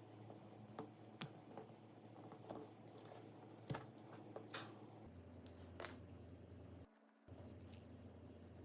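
Faint, scattered clicks and light taps of small tools and phone parts being handled.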